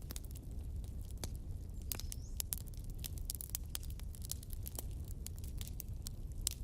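Wood fire in a fireplace crackling: irregular sharp pops and snaps of burning logs over a low steady rumble of the flames.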